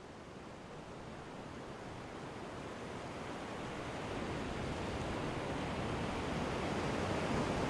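Steady, even rushing noise that sounds like surf, fading in slowly and growing louder: the opening of a background music track.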